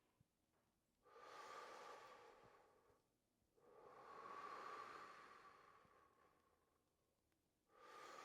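A person breathing slowly and deeply, three long, faint breaths of about two seconds each with short pauses between them. The breaths are paced to a slow arm-raising exercise, inhaling as the arms go up and exhaling as they come down.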